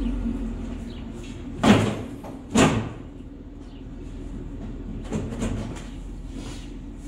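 Two loud sheet-metal clunks about a second apart from the tractor's hood as it is handled, with lighter knocks later, over a steady low hum.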